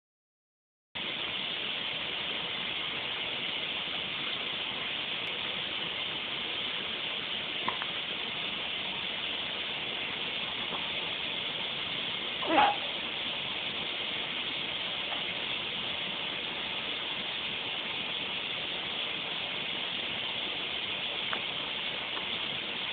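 A few brief hiccups over a steady hiss. The clearest is one short hic about halfway through, with two fainter ones before and after it.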